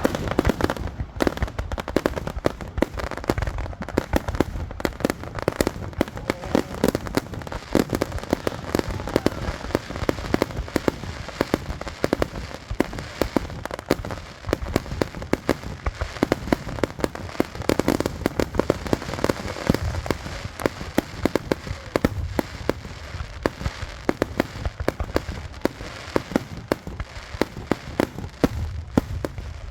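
Fireworks display going off: a dense, continuous barrage of sharp bangs and crackles, many per second, with booming low thuds beneath.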